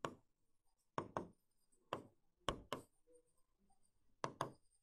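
A pen tapping and knocking against a writing board as a word is written: about eight short, sharp knocks, several in quick pairs.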